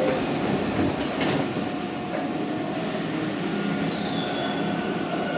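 Subway train standing at a station platform, its equipment giving a steady running noise; near the end a faint steady tone comes in as the train gets ready to pull away.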